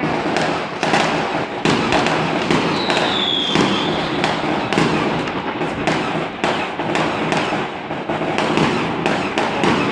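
Fireworks and firecrackers going off in a dense, rapid crackle of sharp bangs, with a short high whistle about three seconds in.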